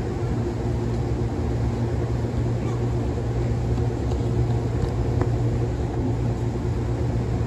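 Amtrak train of bi-level Superliner cars standing still, its machinery running with a steady low hum.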